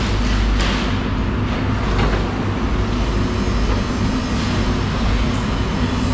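Steady loud mechanical drone with a low hum, from running machinery, with a few brief faint scrapes as a knife works the skin of a yellowfin tuna.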